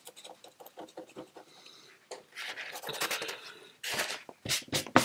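Watercolour brush rubbing and scratching in short strokes on watercolour paper, then a paper towel crinkling as it is handled near the end.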